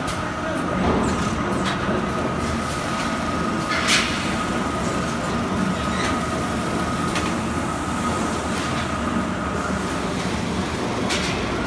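Fertilizer blending and bagging line running: a steady machinery rumble with a constant high whine, broken by a few sharp clanks, the loudest about four seconds in.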